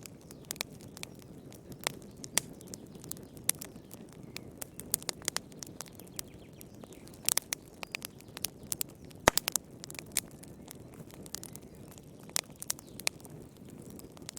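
Wood fire burning in a fireplace: a low steady rumble of flames under irregular sharp crackles and pops, with a brief cluster about seven seconds in and the loudest pop a couple of seconds later.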